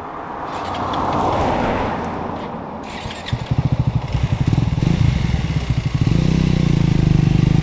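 A rushing noise swells and fades, then about three seconds in a motorcycle engine comes up loud and close, running with a low, rapidly pulsing note that holds steady.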